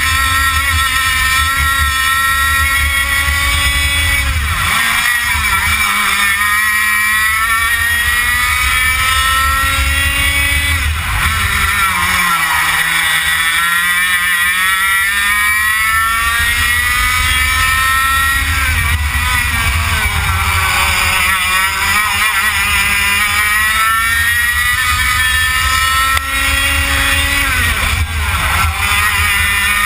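100cc two-stroke racing kart engine at full race pace, its pitch climbing steadily through long stretches, then falling sharply about four times as the driver lifts off for corners, before rising again.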